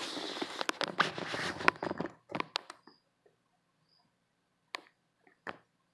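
Rustling and scraping handling noise from a phone camera being moved, with sharp clicks and taps, for about the first two seconds, then a few separate clicks. A faint high cricket chirp repeats about once a second.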